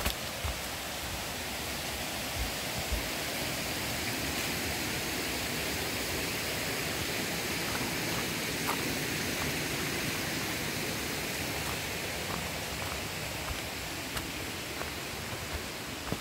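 Steady rushing hiss of rainforest ambience that swells slightly midway, with a few soft footfalls on the trail near the start.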